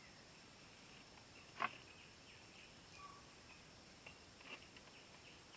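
Faint forest ambience: a thin steady high tone and scattered short chirps over a quiet hiss, with one sharp click about one and a half seconds in and a few softer ticks near the end.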